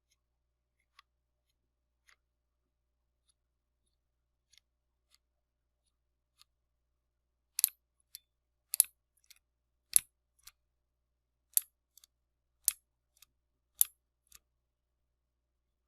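Cherry MX mechanical keyboard switches being pressed one at a time. A few faint taps for the first seven seconds, then six loud, sharp clicks about a second apart, each followed by a softer click as the key is released.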